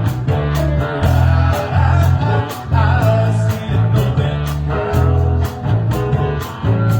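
Live band playing a blues-rock song: guitar lines over a heavy, steady bass line, with regular drum hits.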